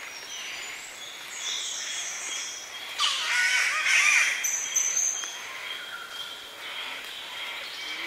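Morning bird chorus in Australian highland rainforest, with calls of spotted catbirds and Lewin's honeyeaters: several birds call over one another. A louder, harsh call starts about three seconds in and lasts about two seconds.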